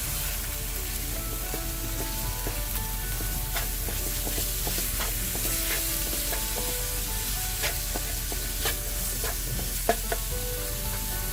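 Ground chicken sizzling in hot oil in a frying pan, with a spatula scraping and tapping the pan here and there as the meat is broken up and stirred.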